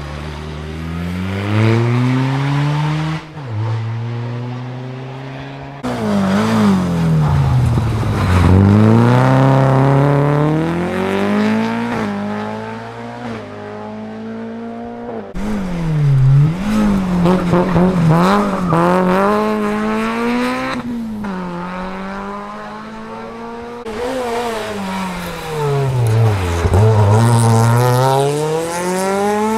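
Rally cars on a special stage, several in turn. Each engine's pitch falls as the car slows, then climbs hard as it accelerates away through the gears.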